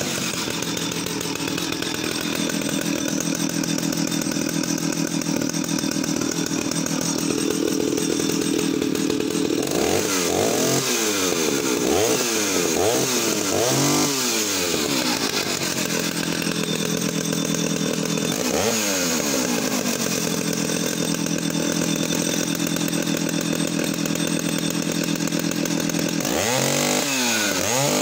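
Stihl 051AV two-stroke chainsaw running without cutting, just started: a steady engine note for about ten seconds, then revved in several quick rising-and-falling blips, once more a few seconds later, and again in a run of blips near the end.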